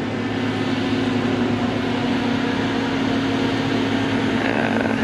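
Steady vehicle hum with road noise: an even hiss over a constant low drone.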